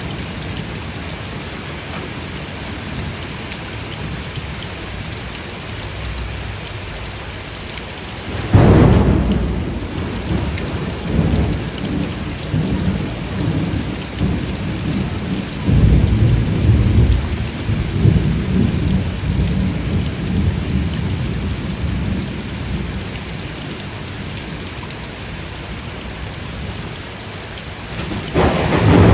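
Steady rain in a thunderstorm. A sudden thunderclap about eight seconds in rolls into low rumbling that swells again around sixteen seconds, and another clap breaks near the end.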